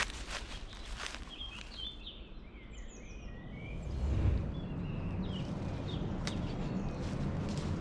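Small birds giving short chirps, after a few footsteps crunching on dry leaf litter. From about halfway a steady low rumble sets in beneath the calls.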